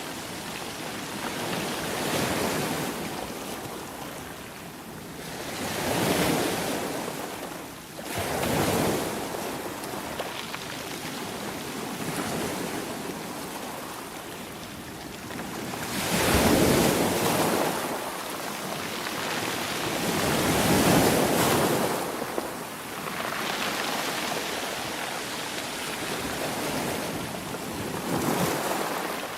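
Ocean waves breaking and washing on the shore, swelling and falling back every few seconds, with the biggest surges about a third of the way in and again past the middle.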